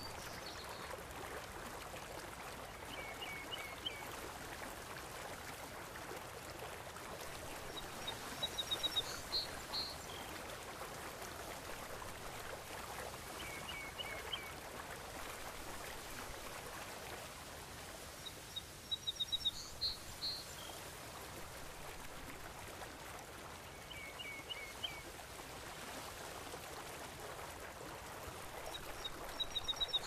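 Steady rushing of sea water, with short bursts of quick bird chirps about every five seconds, alternating between a higher and a lower call.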